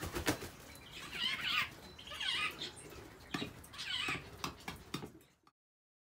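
Blue-eared starlings calling, several bursts of calls about a second apart, with a flutter of wings just after the start. The sound cuts off suddenly near the end.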